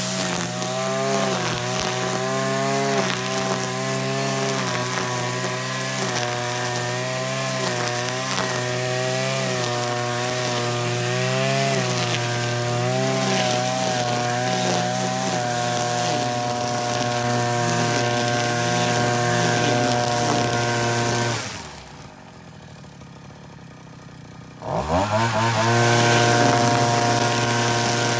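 Petrol brush cutter with a string trimmer head running at high revs, its engine note wavering as it cuts through grass, then holding steady. About three-quarters of the way through, the throttle is let off and the engine falls to a much quieter idle for about three seconds, then revs back up to a steady high speed.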